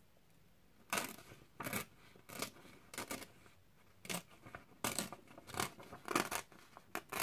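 A sheet of paper being torn by hand along a ruler edge, its fold line dampened with water so it tears evenly. It comes as a dozen or so short rips, starting about a second in.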